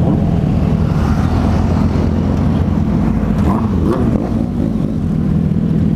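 Motorcycle engines running steadily at highway speed, heard from the rider's seat with heavy wind rush over the microphone; a brief rise in engine pitch near the middle.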